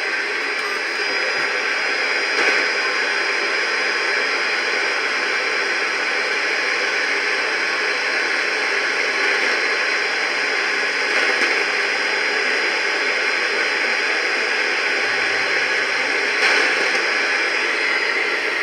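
Steady static hiss from a weather radio receiver.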